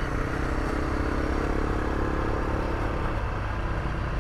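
A vehicle driving along a gravel road: its engine running at a steady pace under constant road and wind noise.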